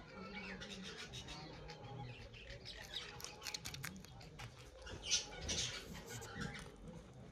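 Guinea pig biting and chewing a crisp green pod: a run of small crunches and clicks.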